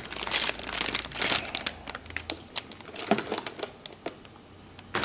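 Clear plastic bag of Lego bricks crinkling as it is handled. The crinkling dies down about four seconds in.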